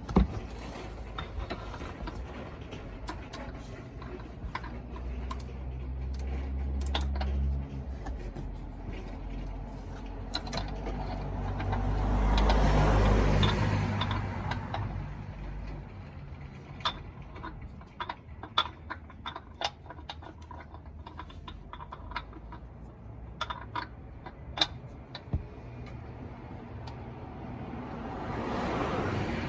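Hand tools and metal parts clicking and clinking in scattered short strokes while car maintenance work is under way. A low rumble swells and fades about halfway through.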